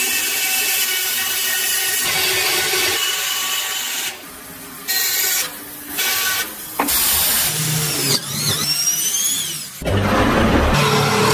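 Electric bandsaw running and cutting through a thick hardwood block, broken by several abrupt cuts between short clips, with a few rising high squeals near the middle. At about ten seconds in it changes to a scroll saw cutting a wood block.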